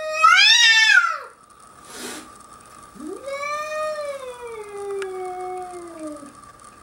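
A house cat yowling in threat at a lynx outside the glass. A long wavering yowl trails off about a second in, and a short hissy burst comes about two seconds in. Then a second long yowl slides down in pitch and fades out near the end.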